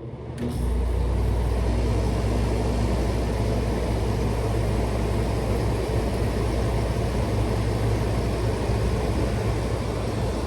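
Window air conditioner running with its compressor on: a steady deep hum under the even rush of the fan, the hum coming in strongly about half a second in.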